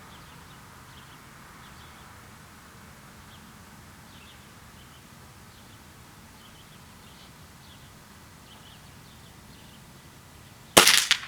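A Gamo Hunter .177 coil-spring break-barrel air rifle fires a single shot near the end: one sharp, sudden report with a short decaying tail.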